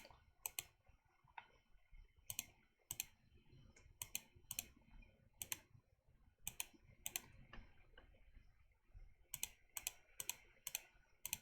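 Computer mouse and keyboard clicks, irregularly spaced, many heard as a quick press-and-release pair, with a faster run of clicks near the end.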